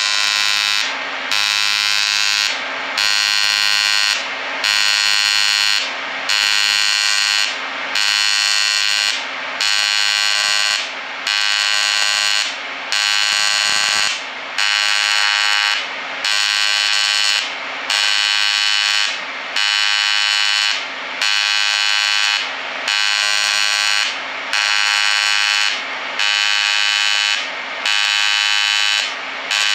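AC TIG welding arc on aluminum, from an Everlast POWERTIG 255EXT run at its full 255 amps, buzzing loudly with many overtones. The buzz swells and dips in a regular cycle about every 1.7 seconds as the advanced pulse alternates its AC cleaning spike with its DC penetration spike.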